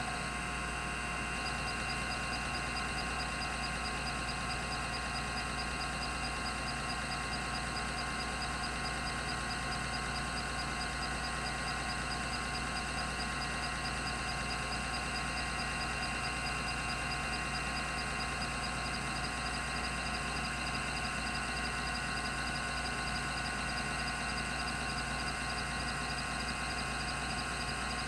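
Rodime RO352 3.5-inch hard drive running: a steady whir of its 3600 rpm spindle, made of several steady tones, with a faint, rapid, regular high ticking that starts about a second in.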